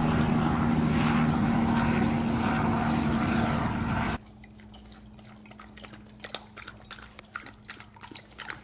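Steady engine drone with a low hum, typical of a small propeller plane overhead, stops suddenly about four seconds in. After it come faint scattered clicks and licks of a husky eating from a stainless steel bowl.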